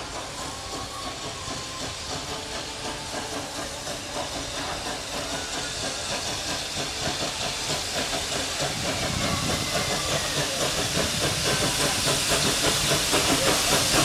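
Propane-fired 4-4-0 tender steam locomotive, built by Crown Metal Works in 1979, approaching on narrow-gauge track: hissing steam and a rhythmic exhaust beat, growing steadily louder as it comes closer.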